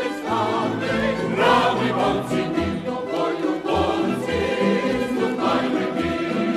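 Choir singing a military march with instrumental accompaniment and a steady bass line underneath.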